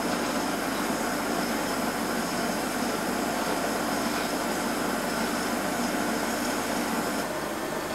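Glassblower's glory hole (reheating furnace) burning with a steady roar while a gather of glass on a blowpipe is held in its opening.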